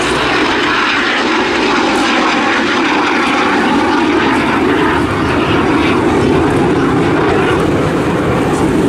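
Eurofighter Typhoon FGR4 jet and a Spitfire fighter flying over together in formation, their engines heard as one loud, steady drone.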